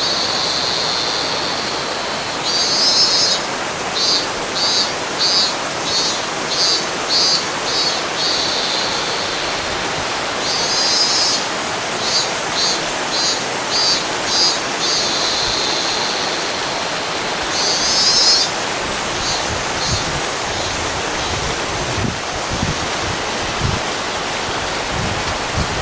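A river babbling steadily, with a Minmin cicada (Hyalessa maculaticollis) singing over it in three phrases: each starts with a buzz, then rhythmic 'meen-meen' pulses about one and a half a second. The cicada falls silent after about 19 seconds, leaving the water alone.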